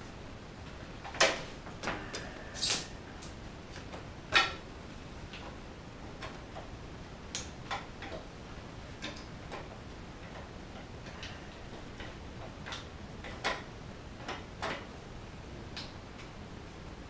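Scattered sharp clicks and light knocks of metal bicycle parts being handled as the front wheel and its quick-release skewer are fitted to the fork. The loudest come about a second in and just over four seconds in, with fainter ones spread through the rest.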